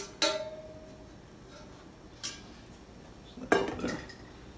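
A spatula knocks against a stainless steel cooking pot with a metallic clank that rings briefly, then a lighter tap; about three and a half seconds in, the pot clatters as it is set down on the table.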